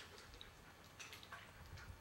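Near silence: a few faint, scattered ticks and clicks over a low rumble.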